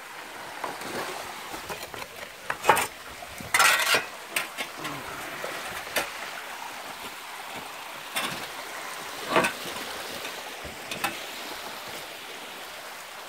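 Rain runoff trickling steadily over mud and loose stones, with several sudden scuffs and rustles of footsteps on the slope and of leaves brushing close by, the loudest a little under four seconds in.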